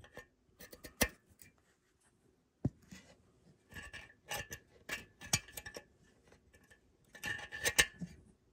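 A pick scraping and tapping inside the water jacket of a cast-iron Toyota 2JZ engine block, breaking up crumbly coolant scale deposits: scattered small clicks and scratches, with a sharp tick about a second in and busier runs of scraping in the middle and near the end.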